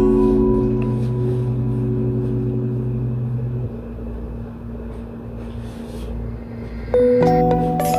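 Background music: held low chords that thin out and fade after a few seconds, then a new chord with ringing bell-like notes comes in near the end.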